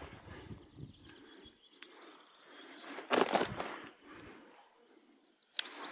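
Footsteps and rustling through wet bog vegetation, in uneven bursts, the loudest a bit after three seconds in.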